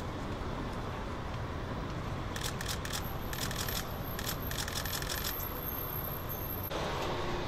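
Steady rumble of city road traffic, with clusters of sharp clicks in the middle and a louder wash of noise coming in near the end.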